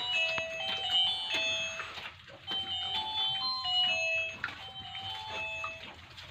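A chiming electronic melody of clear, held notes stepping up and down, like a doorbell or ringtone tune, with a few short clicks.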